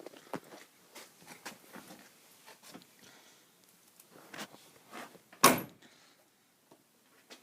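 Scattered light knocks and clicks of objects being handled, with one louder clunk about five and a half seconds in.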